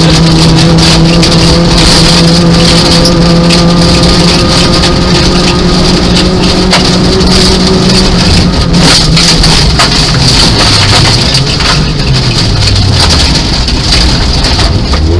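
Nissan Micra 1.0 rally car's engine running hard at steady high revs, heard from inside the cabin, with loose gravel crackling and pinging against the underside throughout. About eight seconds in, the engine note drops and wavers as the car lifts off.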